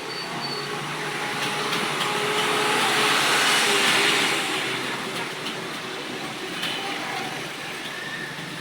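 A passing vehicle: a rushing noise that swells and fades, loudest about three to four seconds in, with a few faint scattered clicks.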